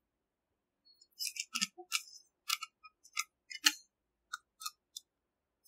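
Irregular plastic clicks and taps from a small tripod's phone-holder clamp and head being handled and fitted, starting about a second in, a dozen or so light clicks over the next four seconds.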